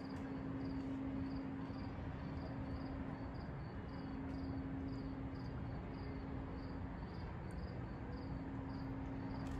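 Crickets chirping steadily, about two chirps a second, over a steady low hum and rumble from the bulk carrier's running machinery alongside the lock wall.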